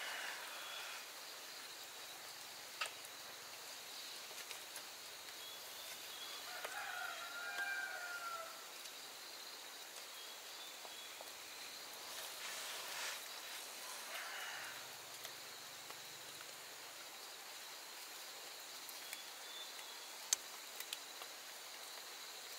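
Quiet rural outdoor ambience with a steady faint high hiss. A short bird call comes about seven seconds in, along with a couple of faint chirps and an occasional light click.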